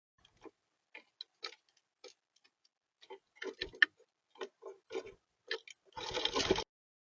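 Irregular taps and knocks of a feeding animal on a bird feeder, pecking or scrabbling at the seed, ending in a short burst of rustling about six seconds in.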